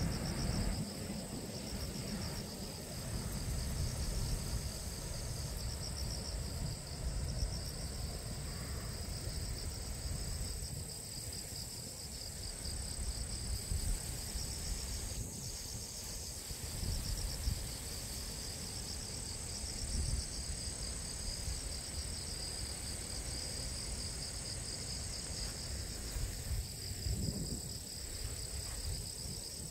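A steady, high chorus of insects in a rice paddy, with gusts of wind rumbling on the microphone underneath.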